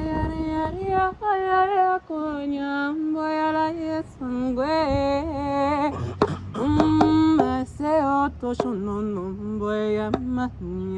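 A woman's voice singing wordless, wavering held tones and sliding melismas, the improvised vocalising of light-language channeling, with a few sharp clicks around six to seven seconds in.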